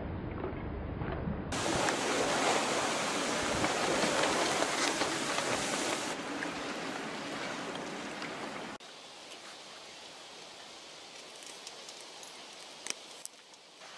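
Steady rushing noise of wind and water around a sailing yacht under way. About nine seconds in it drops suddenly to a quieter outdoor background, with a couple of sharp clicks near the end.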